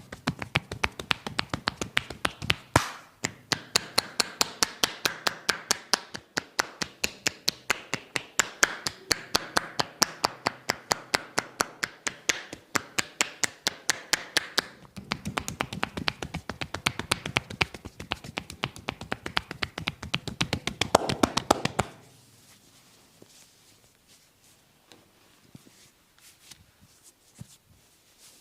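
Rapid percussive hand massage strokes (tapotement), the barber's hands tapping and slapping the body in a fast steady rhythm of about five strokes a second. About fifteen seconds in the strokes turn deeper and duller, and they stop suddenly a few seconds later.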